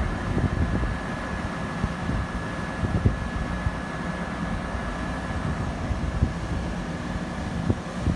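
Commuter train rolling through the station with a steady low rumble, a few irregular wheel knocks and a faint steady high whine, with wind buffeting the microphone.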